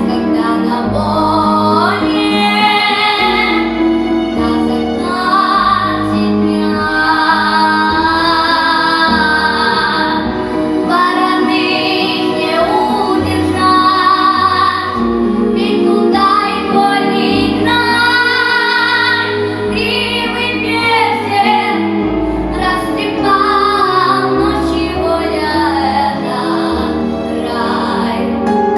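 A female voice singing a melodic song over an instrumental backing track with a bass line, in long sustained phrases.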